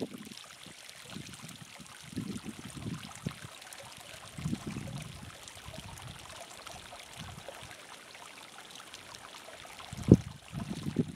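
Hot spring water trickling steadily over mineral-crusted rock, with a few irregular low rumbles and a sharp thump near the end.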